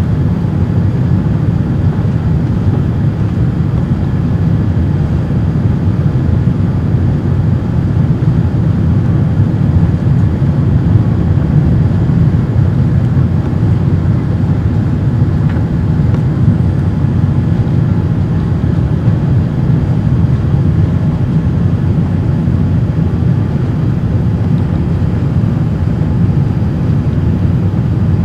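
Steady cabin noise inside a Boeing 787-8 in flight: an even, low rumble of its General Electric engines and the airflow past the fuselage, heard from a cabin seat.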